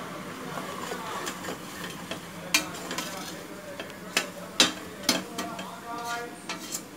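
A metal ladle stirring and scraping a spiced onion masala in a metal pressure-cooker pot over a steady sizzle of frying oil. The ladle clinks sharply against the pot a few times, loudest about halfway through.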